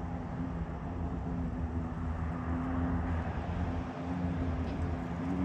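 Embraer ERJ-145's twin turbofan engines running: a steady low rumble with a held hum, slowly growing louder.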